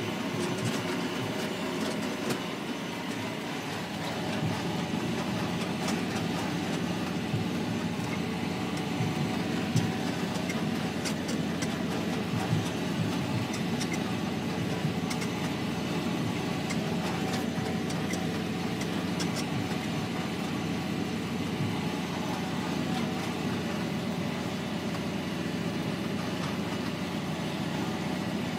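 John Deere 6820 tractor's six-cylinder diesel engine running steadily under load while pulling a Knights triple press over ploughed land, heard from inside the cab. A few light rattles come through around the middle.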